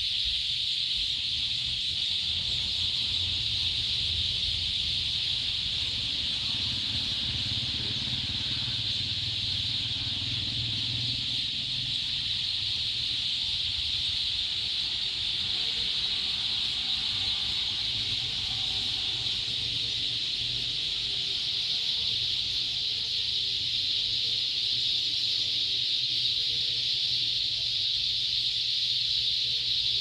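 A large flock of birds calling all at once in the trees, making a dense, steady chorus that does not let up.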